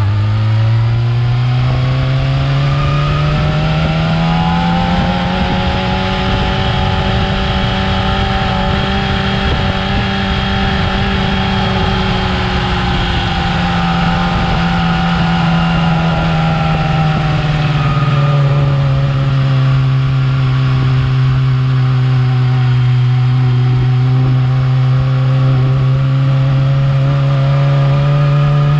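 Yamaha R6 sport bike's inline-four engine on its stock exhaust, running continuously. Its pitch climbs over the first few seconds and holds high, eases down partway through, then climbs again near the end.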